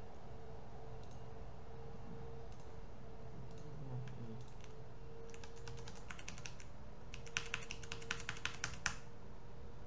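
Typing on a computer keyboard: a few scattered keystrokes, then a short run about halfway through and a quicker, louder burst of keystrokes near the end, over a steady faint hum.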